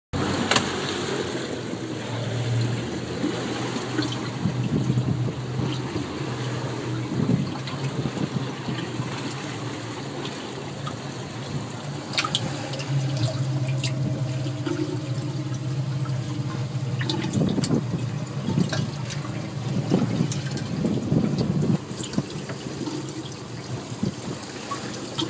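Water sloshing and trickling in a tub holding live-caught fish, over a steady low hum, with a few sharp knocks now and then.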